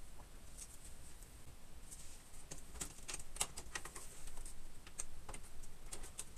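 Parts being handled inside a Power Mac G5's aluminium case as its plastic twin-fan cage is lifted out and the hands work in the lower bay: scattered small clicks and light knocks, thickest around the middle and again near the end.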